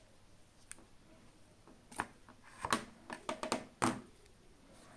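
Small hard-plastic clicks and taps from wireless earbuds and their charging case being handled in the fingers: a couple of single clicks, then a quick cluster of clicks and rubbing about three to four seconds in.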